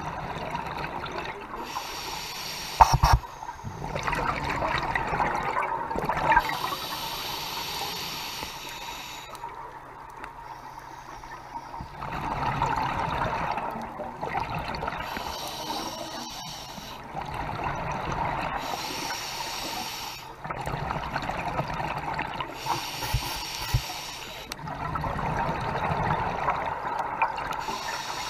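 Scuba diver's regulator breathing underwater: rushes of exhaled bubbles alternating with quieter hissing inhales, in slow cycles every few seconds. A sharp knock about three seconds in.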